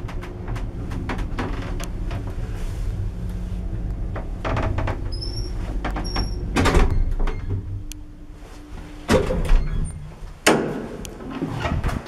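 Old Zremb passenger lift travelling: a steady low hum from the moving car with light rattles and clicks, then loud clunks about nine and ten and a half seconds in as it stops and its car doors begin to open.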